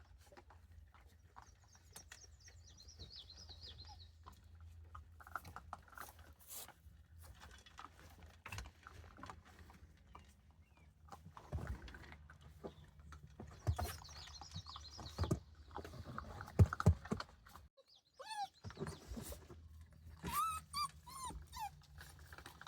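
Puppies whining and yelping in short, high, repeated cries, among knocks and clatter, which are loudest in the middle.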